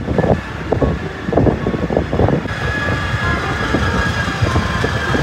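Car interior sound of a small taxi driving: a steady engine and road-noise rumble heard inside the cabin, with a person's voice briefly in the first couple of seconds.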